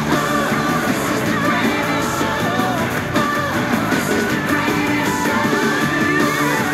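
Upbeat pop-rock music with singing over a full band.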